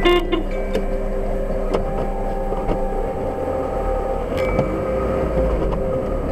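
Car engine and tyre noise heard from inside the cabin while driving, with a brief horn toot right at the start.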